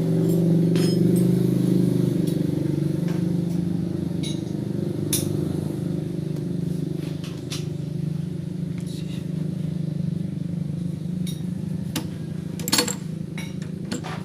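A motor vehicle engine running steadily, with light metallic clicks and clinks scattered over it and a sharper knock near the end, fitting an aluminium pannier box being handled.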